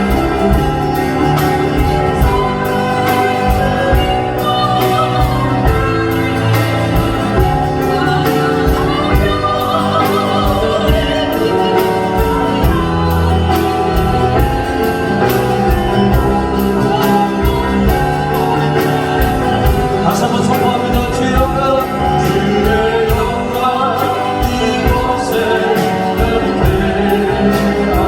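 Korean contemporary worship music: a choir and singers over a band with a steady beat.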